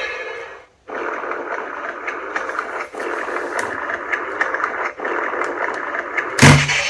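Recorded sound effects played through the small built-in speaker of an Ultra Replica Dark Orb Ring toy, thin and tinny. A new effect starts after a brief gap just under a second in, and there is a loud hit about six and a half seconds in.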